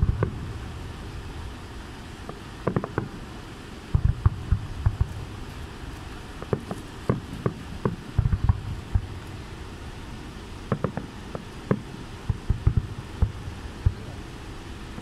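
Aerial fireworks shells bursting in a rapid string of deep booms and sharper cracks, coming in clusters of several bangs at a time.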